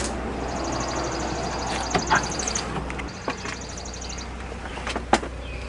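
A bird's high, rapid trill, sung twice, with a few sharp knocks and clicks, the loudest near the end, over a steady low rumble.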